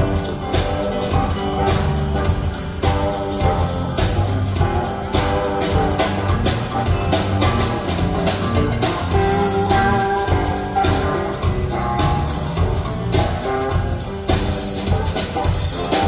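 Rock band playing live at a sound check: drum kit keeping a steady beat under guitar and other held pitched notes.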